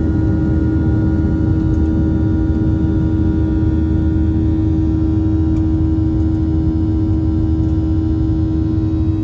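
Cabin sound of a Boeing 737-700's CFM56 turbofan engines at takeoff thrust as the jet lifts off and climbs away. A steady, loud rush of engine and air noise with a strong steady hum over it.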